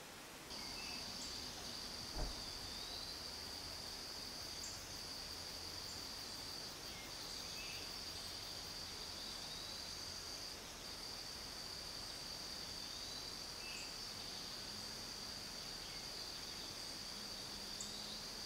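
Insects calling in a steady, high, continuous drone, with faint short chirps every few seconds and a soft thump about two seconds in.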